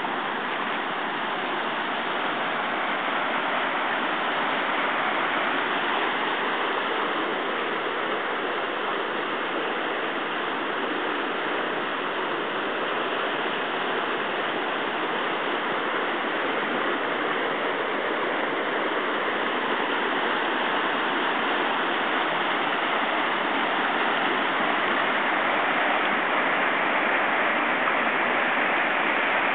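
Rocky stream rushing over boulders and small rapids: a steady rush of white water, a little louder near the end.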